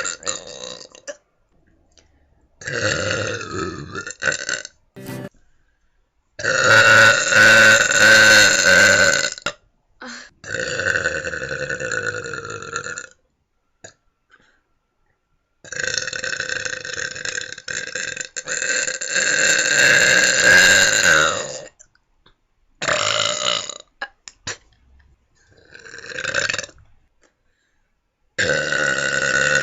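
A person belching deliberately, again and again: a string of loud, long, drawn-out burps, the longest held for several seconds, with short silent gaps between them.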